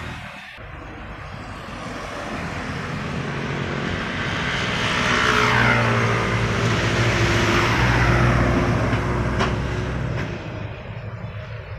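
Road traffic passing close by: a white light truck and another vehicle drive past, engine hum and tyre noise swelling to a peak midway and fading again, with a whine that falls in pitch as they go by.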